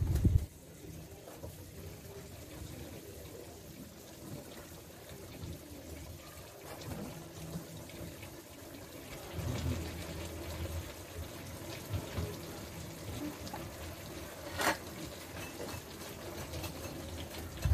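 Pork, liver and carrots sizzling steadily in a wok, with one sharp knock about fifteen seconds in.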